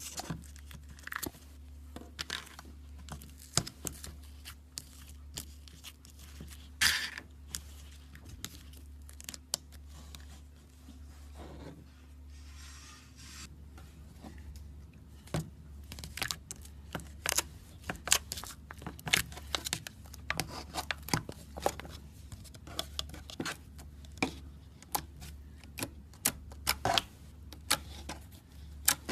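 Hands working slime: irregular sticky pops and clicks as it is pressed and stretched, more frequent in the second half, over a steady low hum.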